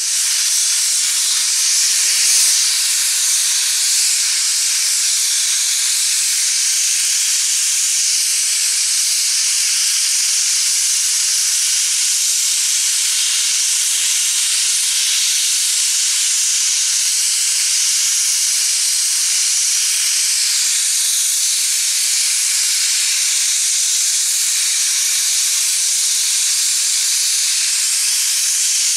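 Steam locomotive venting steam in a loud, steady hiss that bursts on suddenly and holds without a break, with no exhaust chuffs.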